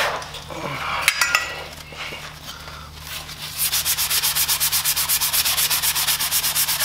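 Rust being scrubbed off a small steel intake bracket by hand with an abrasive, in fast, even back-and-forth strokes of about eight a second. The strokes start about three and a half seconds in, after a few light metal clinks as the bracket is handled.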